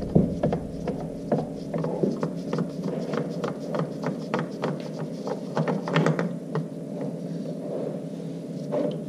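Irregular light clicks and rubbing as a gloved hand spins the loosened motorcycle oil filter off the engine by hand, over a steady low hum.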